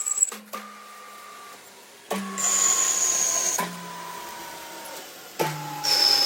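CNC machine tool running in stages: a motor whine that jumps to a new, slightly falling pitch every second or two, each change starting with a click. Louder hissing cutting noise comes in from about two seconds in and again near the end.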